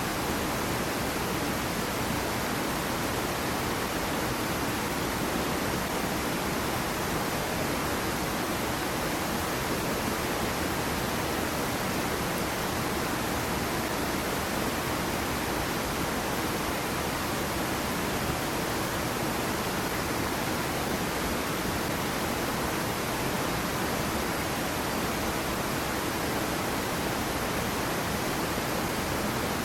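Small waterfall on a stream splashing into a pool: a steady, unbroken rush of falling water.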